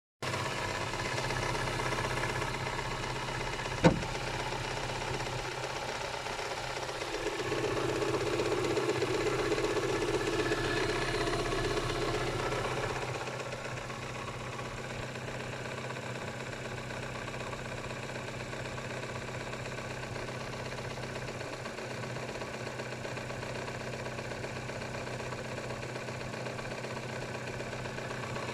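Kia Spectra 1.6 four-cylinder engine running steadily with a knock, the engine knock that the owner is recording. A single sharp click about four seconds in, and the engine runs louder for about five seconds in the middle before settling back to a steady idle.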